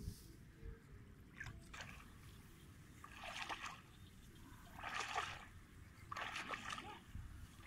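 Someone wading through shallow muddy water among rice plants: three splashing, sloshing steps about a second and a half apart in the second half, with a few light knocks before them.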